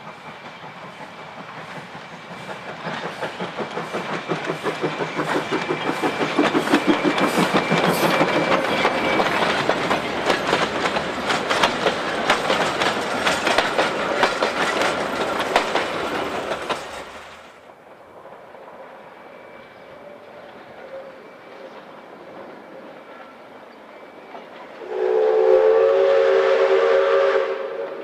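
Steam locomotive running past with a fast, rhythmic clatter that grows louder and then cuts off suddenly about seventeen seconds in. Near the end its whistle blows a steady chord for a couple of seconds.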